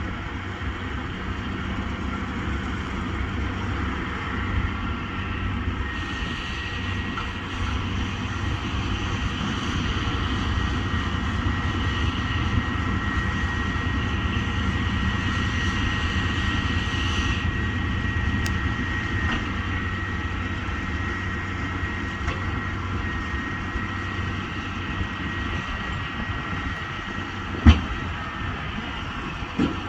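New Holland T7.185 tractor running steadily while driving a baler: a continuous low engine hum with a steady whine over it. There is one sharp knock near the end.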